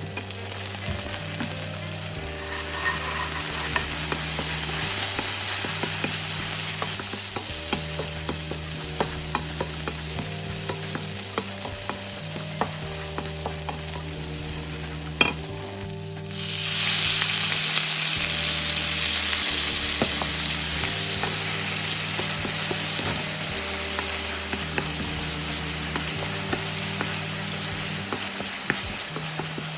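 Food sizzling in a frying pan while it is stirred, with small clicks of the utensil against the pan. The sizzle grows louder about halfway through. A soft background music bass line plays underneath.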